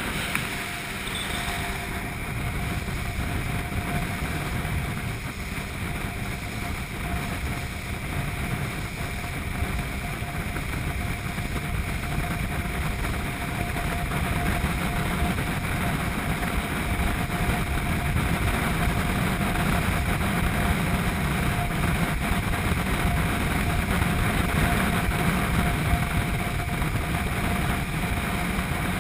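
Speedboat under way at speed: the engine's steady drone mixed with the rush of water and spray off the hull. It grows louder through the first half and then holds steady.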